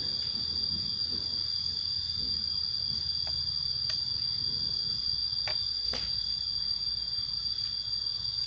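Steady, shrill insect chorus, one unbroken high-pitched trill, with four light clicks around the middle.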